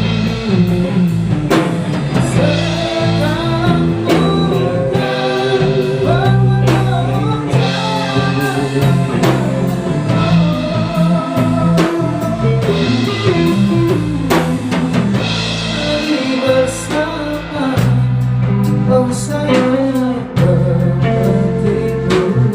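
A band playing a song: drum kit, bass and electric guitar over a steady beat, with a melodic lead line on top.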